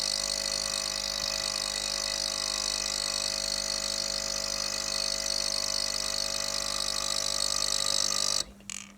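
Magimix Nespresso capsule coffee machine's pump running steadily while brewing, then cutting off suddenly about eight seconds in, followed by a light click.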